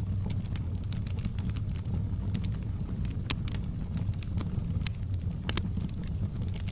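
Wood fire crackling in a fireplace: a steady low rumble of the burning fire with scattered sharp pops and snaps, a few louder ones about halfway through.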